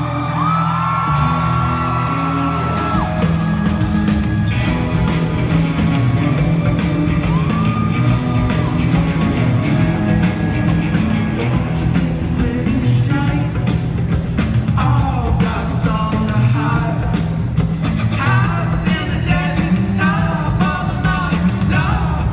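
A live rock band playing loud in an arena, with a singer holding long notes at first. The drums come in about three seconds in, and the vocals return, wavering, in the last third.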